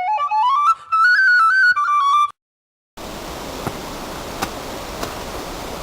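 Solo flute melody moving in short stepped notes, which cuts off about two seconds in; after a brief dead silence a steady outdoor rushing noise begins, with a few faint clicks.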